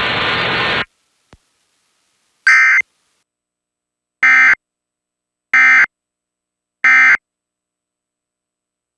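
Emergency Alert System end-of-message signal: four short, raspy digital data bursts, the last three evenly spaced about a second and a quarter apart, marking the end of the alert broadcast. A steady hiss of broadcast audio cuts off suddenly under a second in.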